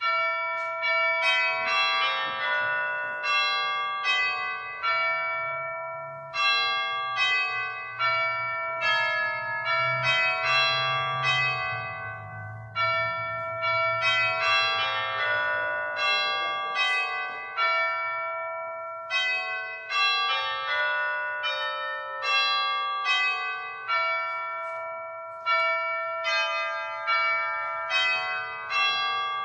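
Bells playing a slow melody: each note is struck and left to ring and fade as the next one sounds, with no voices.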